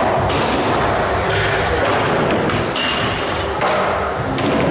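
Skateboard wheels rolling over a smooth concrete floor, a steady rumble, with a few sharp knocks about two and a half to four and a half seconds in.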